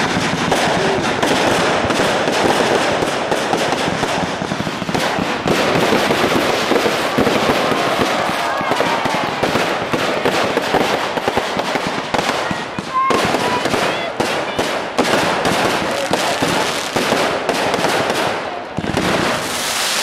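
Fireworks display: dense, continuous crackling and popping of aerial fireworks, with a few short whistles.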